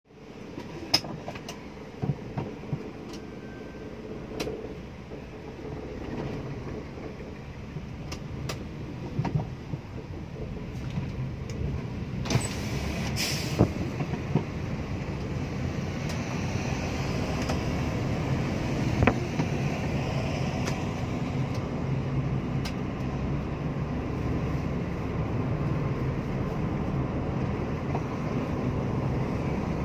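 Car interior noise as the car pulls away and gathers speed on an expressway. Engine and tyre noise grows over the first fifteen seconds or so, then settles into a steady road drone. A few sharp clicks sound in the first ten seconds, and a brief loud rush of noise comes about twelve seconds in.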